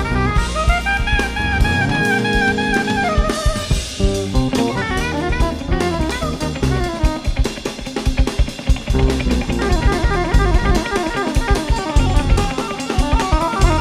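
Live jazz band playing, with a drum kit busy and prominent: kick drum, snare and cymbals hit steadily. Over the drums, melody instruments hold long notes for the first few seconds, then move into fast runs.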